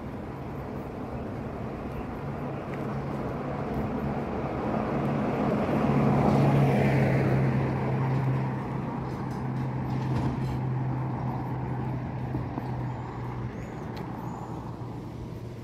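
A motor vehicle passing along the street over background traffic. Its engine hum and road noise build, are loudest about six to seven seconds in, then fade away.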